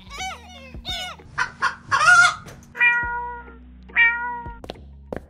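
A string of animal calls: several short wavering calls in the first two seconds, then two longer, steadier calls about three and four seconds in, over a low steady hum. A couple of sharp taps follow near the end.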